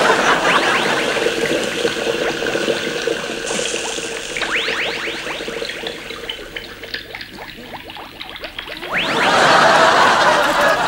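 Bubbling, gurgling potion sound effect with clusters of quick rising whistle-like bloops, as the drink takes effect and the transformation begins. A louder rushing swell comes in about nine seconds in.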